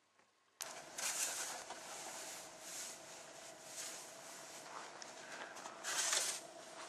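Snow shovels scraping and crunching through packed snow in uneven strokes, about one a second, starting suddenly after a moment of near silence.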